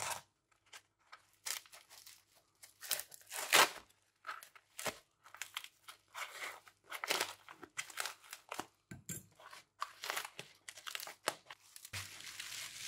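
Packaging around a phone being torn open and unwrapped by hand: irregular tearing and crinkling in short bursts.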